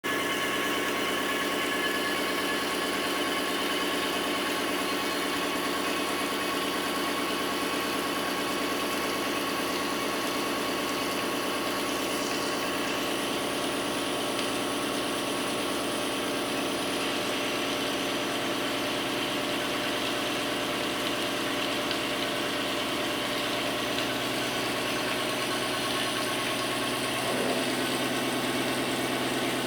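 CNC machining center with a 90-degree angle head running, a steady mechanical hum with several steady tones; a new lower tone comes in near the end.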